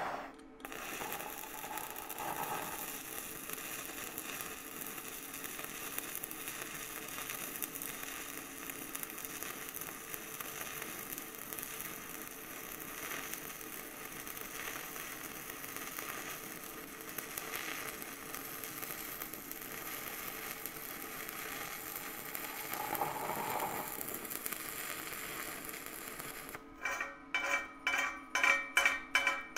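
Stick-welding arc of a nickel-free cast iron electrode (Blue Demon Castarc ESt) crackling steadily as it lays one pass along a ground-out crack in a preheated cast iron exhaust manifold. Near the end the arc stops and a wire brush scrubs the fresh bead in quick rhythmic strokes, about three a second, with a metallic ring.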